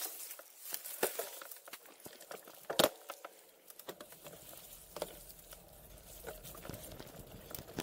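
Gravel bike rolling down a dry forest dirt track: tyres crunching over leaves and stones, with irregular sharp knocks and rattles from the bike, and a low steady hum joining about halfway through.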